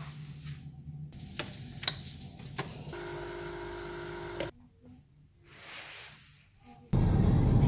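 A run of short household sounds: a low hum with a few sharp clicks, then a steady humming tone for about a second and a half, then a soft rustle. Near the end, car road and engine noise heard from inside the cabin starts abruptly and is the loudest sound.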